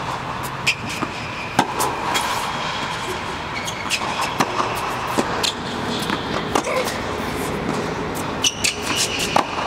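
Tennis balls struck by a racquet and bouncing on an indoor hard court: a series of sharp pops, roughly one a second, over a steady background hum.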